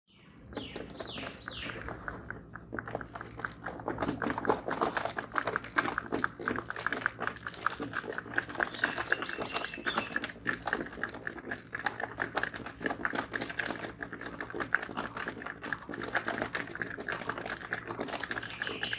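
Pigeons pecking lentils, their beaks striking a hard surface in a rapid, dense, drum-like clatter of clicks that keeps up almost without a break.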